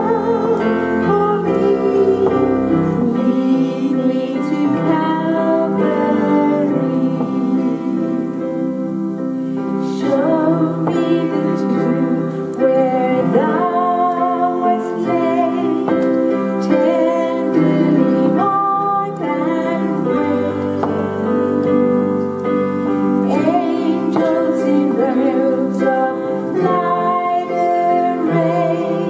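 Women singing a slow worship song in held notes, accompanied on an electric keyboard.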